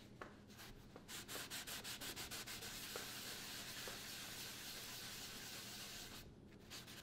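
Kitchen cloth scrubbing the wooden underside of a table, faint quick rubbing strokes that settle into a steadier rub: wiping it down with rubbing alcohol to clean off dust. The rubbing stops about a second before the end.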